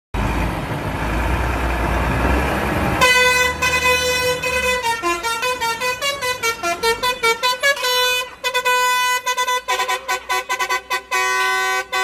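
Telolet horn on a lorry: a multi-note musical air horn playing a tune of short notes that step up and down in pitch. It starts about three seconds in, after a stretch of the truck's rumbling running noise, and breaks into a fast, choppy run of notes in the last few seconds.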